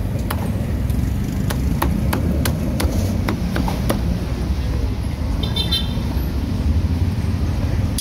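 Heavy meat cleaver chopping roast duck on a thick wooden chopping block: a string of sharp chops, about two a second, through the first half, over a steady low rumble of street traffic.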